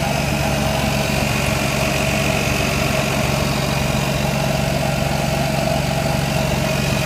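Lexus IS300 idling in drive at a standstill, running steadily with a rattle that comes only in drive, which the owner suspects comes from the transmission.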